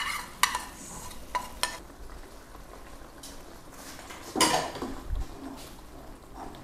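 A spoon stirring whisked yogurt into a frying masala in a cooking pot, with a light sizzle. Metal clinks against the pot a few times in the first two seconds, and there is one louder knock about four and a half seconds in.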